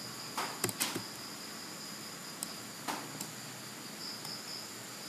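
Computer mouse clicks, three in quick succession within the first second and a few more around two and a half to three seconds in, as nodes are placed while tracing with a pen tool. Under them runs a steady high-pitched background hiss.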